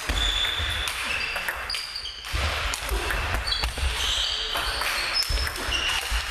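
Table tennis rally: the ball clicking off the bats and the table in quick succession, echoing in a large sports hall, with short high squeaks in between.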